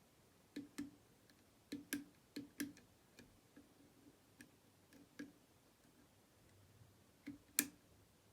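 Small metallic clicks from a hook pick working the steel levers inside a six-lever Chubb lever lock under tension, lifting and dropping them one at a time. The clicks come singly and in quick pairs, a dozen or so, with the loudest pair near the end.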